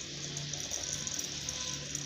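Background music with a low note that repeats.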